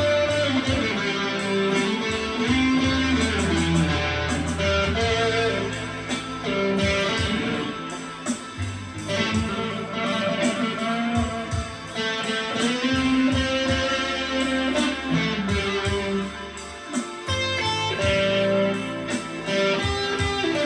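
PRS electric guitar played through a small amp: improvised blues lead phrases of single notes, some of them bent.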